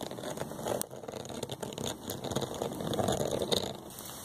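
Fine, dense crackling of sleet pellets on a car's hood and windshield, a little louder about three seconds in.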